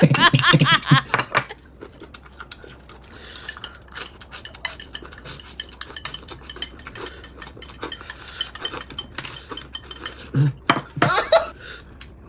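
Chopsticks clicking and scraping against a ceramic bowl as noodles are pushed quickly into the mouth, many small rapid clinks. A person's voice is heard briefly at the start and again near the end.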